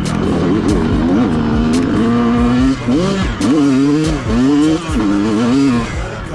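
Dirt bike engine revving with the throttle, fairly steady at first, then its pitch swinging up and down several times in the second half as the rider rolls on and off. A few sharp clicks are mixed in.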